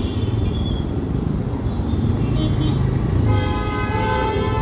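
Steady low rumble of slow, dense road traffic heard from a motorcycle. About three seconds in, a vehicle horn starts and is held steadily on one note.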